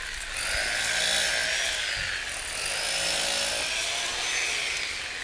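A tool being worked in two long, slow strokes: a noisy rasp with a faint whine that rises and falls with each stroke.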